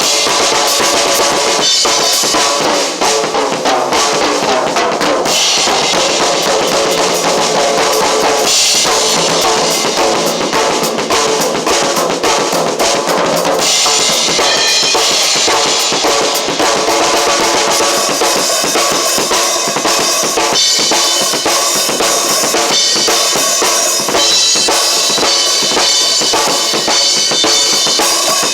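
Drum kit played without a break, with bass drum, snare and cymbal strokes, over other music that carries held pitched notes.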